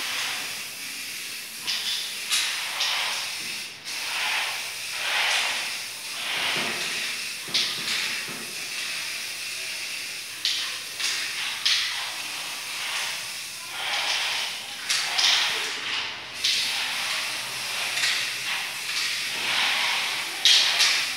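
Aerosol spray paint can hissing in many short squirts, one after another with brief pauses, as white paint is sprayed on.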